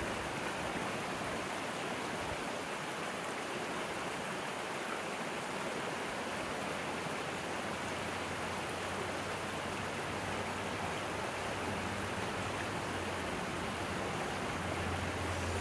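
Steady outdoor background noise, an even rush with no distinct events. A faint low hum comes in about halfway through.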